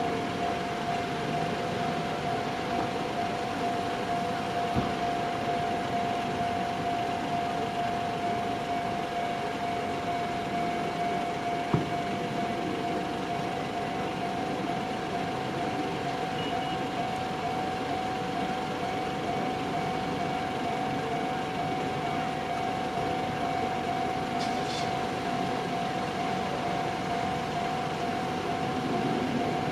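Railway level crossing's electronic warning bell ringing continuously at one steady pitch, over a background hum.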